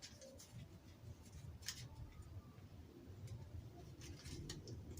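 Faint scattered clicks and small handling noises, a few light ticks spread over the few seconds, from a pH test-strip container being handled, over a low steady room hum.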